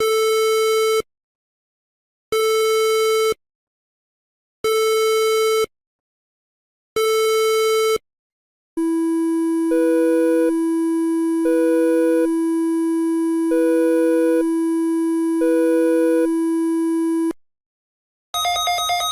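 Electronic beep tones imitating emergency alert alarms: four identical one-second beeps about 2.3 seconds apart, then a long steady low tone with a higher tone pulsing on and off over it four times. It cuts off suddenly, and a new ringing tone starts near the end.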